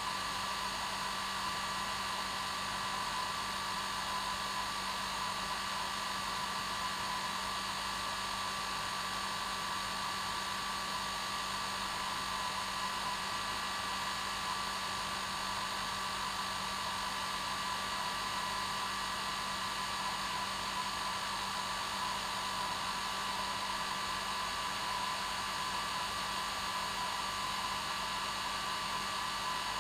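Hair dryer running steadily: an even rushing whir with a constant motor hum and whine.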